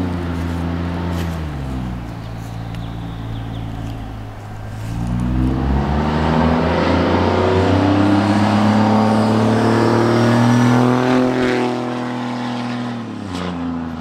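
A 6.7 L Cummins inline-six turbodiesel in a lifted Dodge Ram pickup, with an upgraded turbo and a 5-inch exhaust, driving past loud. The engine note drops at first, then climbs as the truck accelerates toward the camera. It is loudest as the truck goes by and falls away near the end.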